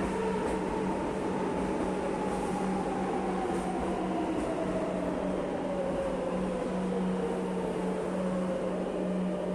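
Madrid Metro train running past in a tunnel at close range: a steady rumble of wheels on rails with a low steady hum and a motor whine that slowly falls in pitch.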